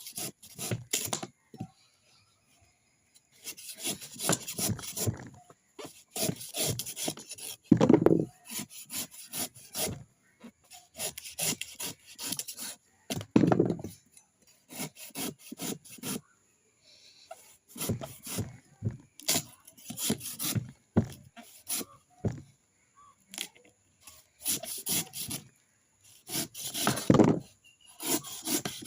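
Rasping, scraping strokes on a coconut, coming in irregular bursts with short pauses between them, and a few heavier thuds along the way.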